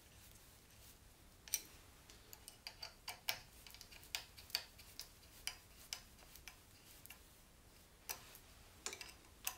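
Light, irregular clicks as a small hex key is turned and reset in the clamp screw of a 3-button handlebar switch housing, tightening it onto the handlebar. A run of clicks, a pause of over a second, then a few more near the end.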